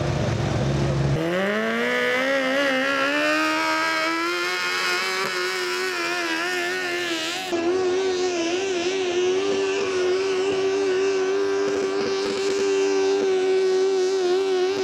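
Motorcycle-engined garden pulling tractors on a pull. The first climbs in pitch over a couple of seconds, then holds at high revs under load. After a break about halfway, another holds high, steady revs with a slight waver.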